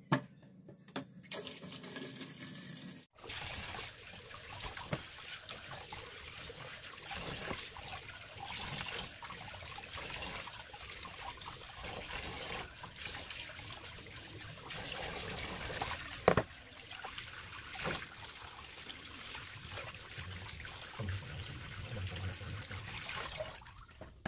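Tap water running and splashing into a sink while pieces of patin fish are washed in a basin. Two sharp knocks stand out about two-thirds of the way through.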